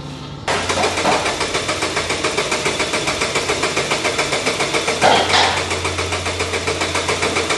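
Starter cranking a Mazda CX-5's petrol engine with an even pulse of about five beats a second, turning it over without it catching: a no-start, even with petrol freshly added to the empty tank.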